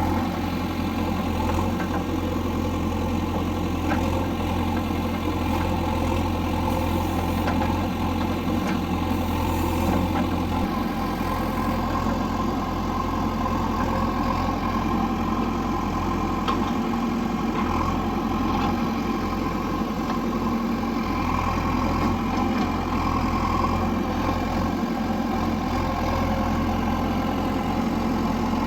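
JCB backhoe loader's diesel engine running steadily at a constant speed, with a few light knocks.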